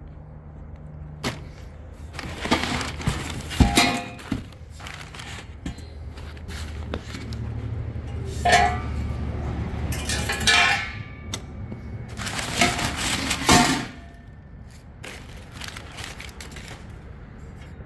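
Crumpled brown packing paper rustling and exhaust pipes knocking against each other as an MBRP exhaust kit is unpacked from its cardboard box. Several spells of rustling with a few sharp knocks between them.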